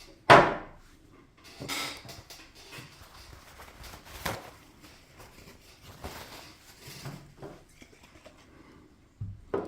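Close handling noises while working on the lens with alcohol and a cleaning cloth: a sharp, loud burst about a third of a second in, then scattered softer rubbing and rustling noises, and a dull knock near the end.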